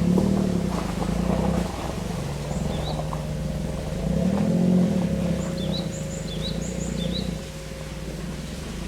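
A vehicle engine running, its pitch rising and falling a few times, with small birds giving short high chirps in little groups.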